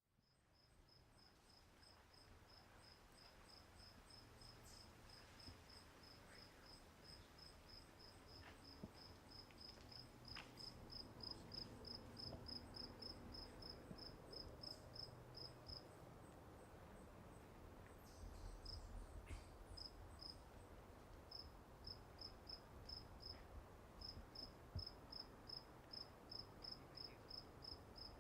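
A cricket chirping in a steady, even rhythm of about three faint, high chirps a second. The chirping stops for a couple of seconds just past halfway, then resumes with one more short break.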